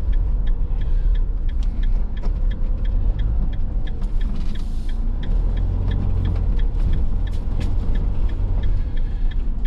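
Engine and road rumble inside a motorhome's cab, with the turn indicator ticking evenly, about three ticks a second.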